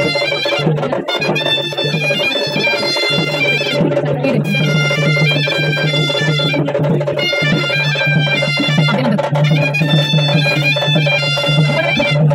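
Music: a reedy wind-instrument melody over a steady unbroken drone, with light percussion beneath.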